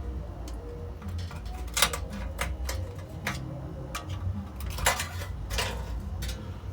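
Metal hand tools clinking and knocking against the engine while the intake manifold is being unbolted and pried loose: about ten irregular sharp knocks, the loudest near 2 and 5 seconds in, over a steady low hum.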